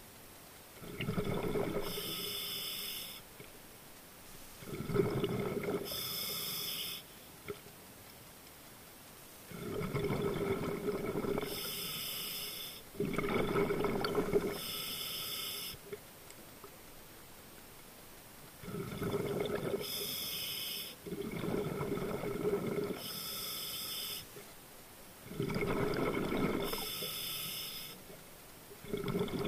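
Scuba diver breathing through a regulator, heard close up underwater: about seven breaths, each a rush of regulator hiss and bubbles lasting two to three seconds, with short quiet gaps between them.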